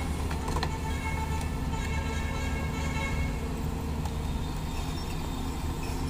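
Doosan crawler excavator's diesel engine running steadily under load as the machine moves with a concrete pipe slung from its bucket, with a higher steady whine over it that stops about three seconds in. A few light knocks come near the start.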